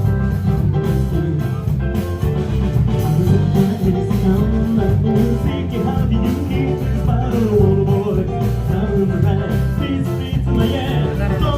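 Music with a singing voice and guitar over a steady beat.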